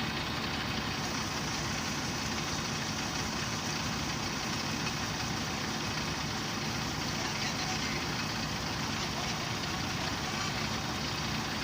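Heavy-equipment diesel engine running steadily at idle.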